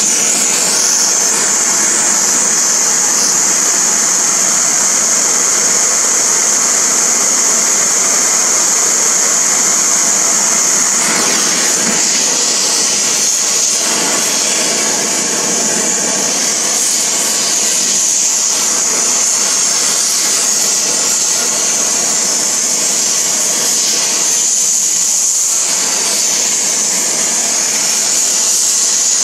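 Oxyacetylene torch flame hissing steadily as it heats a steel shrink collar red hot for locking a tractor rear axle bearing.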